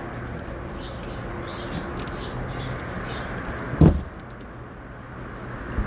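Packaging of print samples being handled and opened: a rustling haze, with one loud knock a little under four seconds in and a small click near the end.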